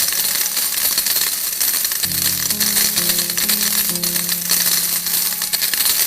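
A continuous shower of coins clinking and jingling, layered over background music with held low notes.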